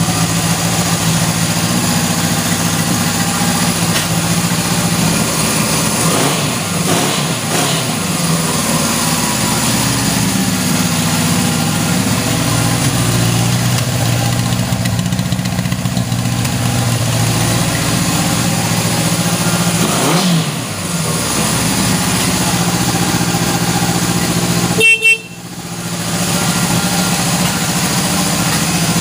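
1977 Honda CB750's air-cooled inline four-cylinder engine idling steadily just after starting, with a couple of brief swings in pitch. Near the end there is a sudden brief loud blip and the sound drops out for a moment.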